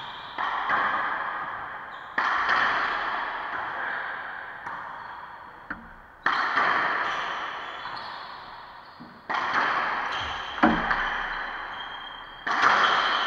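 Racquetball being struck by racquets and slamming into the court walls, each hit ringing out in the enclosed court's long echo. A loud hit comes every two to three seconds, with a couple of shorter, sharper taps in between.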